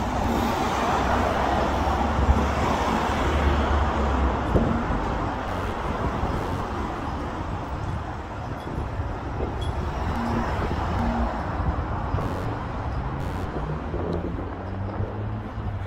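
Street ambience with steady road traffic: cars passing, a low rumble that swells in the first few seconds and then settles to a constant hum.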